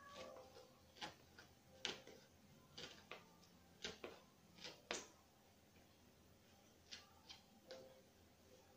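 About a dozen short, sharp clicks and taps at irregular intervals, from hands and a small tool working on a paper-covered cardboard piñata. The loudest come about two and five seconds in.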